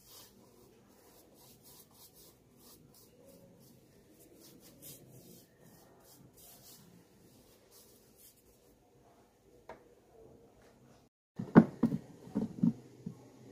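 A small brush scraping and dabbing primer onto a rubber shoe heel: faint scratchy rubbing in quick strokes, stopping about eight seconds in. About eleven seconds in come several loud knocks and clunks.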